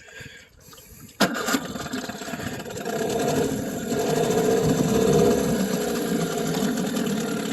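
Johnson 9.9 electric-start outboard motor catching suddenly about a second in, then running steadily at a fast idle.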